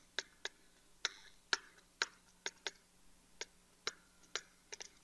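Pen stylus tapping and scratching on a tablet surface while writing by hand: about a dozen short, sharp, irregular clicks, a few drawn out into a brief scratch.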